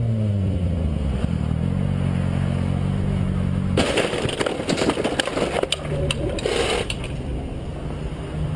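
Sport motorcycle's engine note falling as the bike slows, then steady. About four seconds in the bike crashes into the back of a vehicle: a loud impact followed by about three seconds of scraping and clattering. A low engine hum continues afterwards.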